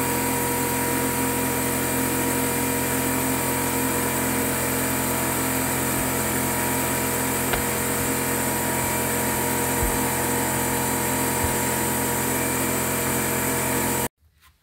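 Fluid extraction pump running steadily while it sucks old gear oil out of a differential housing. Its motor keeps an even, multi-toned drone and cuts off suddenly near the end.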